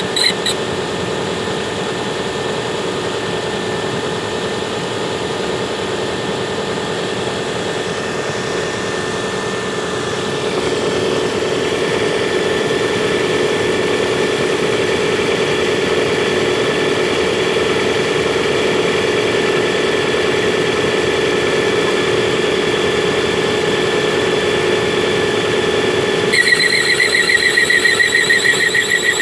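Vehicle engine idling steadily, with an extraneous noise in its running. It gets a little louder about eleven seconds in, and near the end a high-pitched, rapidly pulsing squeal joins it.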